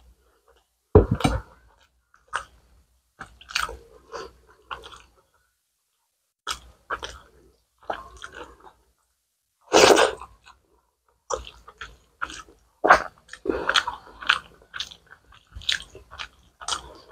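Close-miked eating of rice and curry by hand: irregular wet chewing, smacking and biting sounds, with fingers squishing curry-soaked rice and a louder thump about a second in.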